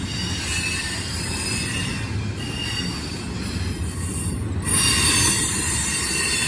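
CSX intermodal freight train cars rolling past. A steady low rumble of wheels on rail runs under high, thin squealing tones, which grow louder about five seconds in.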